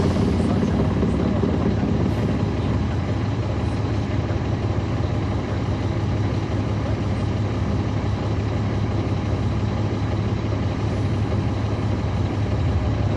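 Caterpillar C13 ACERT diesel engine of a 2009 NABI 40-SFW transit bus, heard from on board, running with a steady low drone. A short hiss comes right at the start.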